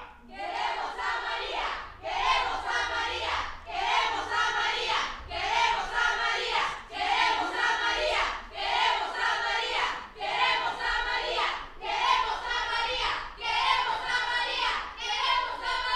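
A group of young voices chanting a slogan in unison, a protest-style chant repeated roughly once a second.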